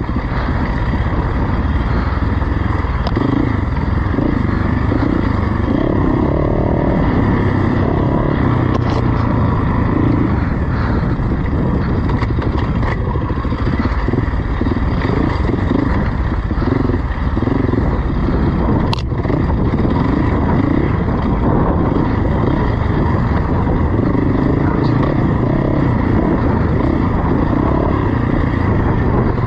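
Off-road motorcycle engine running continuously while being ridden, its note rising and falling with the throttle. A few sharp ticks or knocks cut through it, the clearest about two-thirds of the way in.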